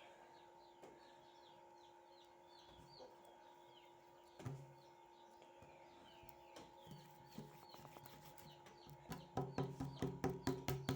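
Small birds chirping repeatedly over a faint steady hum. Near the end a fast run of sticky clicks and pops grows louder as the slime is squeezed and worked by hand.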